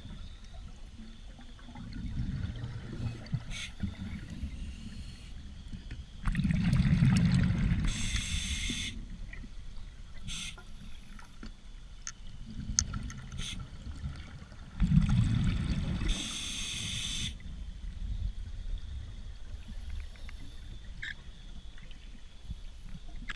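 A scuba diver breathing on a regulator, heard underwater: twice, a low rumble of exhaled bubbles followed by about a second of regulator hiss on the inhale, the breaths about eight to nine seconds apart. Faint clicks and taps sound in between.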